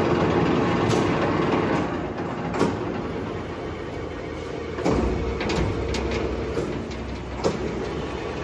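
Blanchard 18-42 rotary surface grinder running with a steady hum, broken by several sharp clicks and clunks. About five seconds in, a clunk is followed by a deeper hum.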